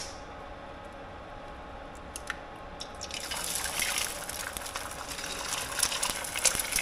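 A sharp click, then from about three seconds in a dense crackling sizzle that grows louder: eggs frying in hot oil in a pan.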